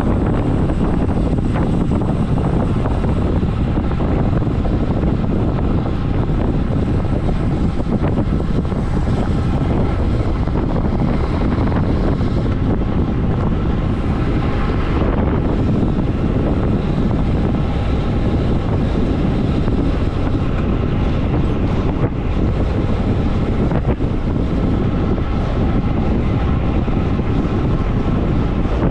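Steady, loud wind rush buffeting the microphone of a road bike descending at about 50 km/h.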